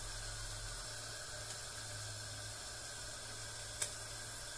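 Steady hiss of a flatbread cooking on a hot griddle on a gas stove, with a low hum underneath and one faint click near the end.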